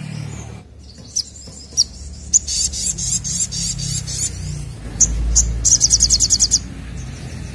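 Brown-throated sunbird (sogokontong) singing loudly: sharp, high single chips and two fast, rattling high trills, the first about two seconds long and the second under a second. A low rumble sits underneath.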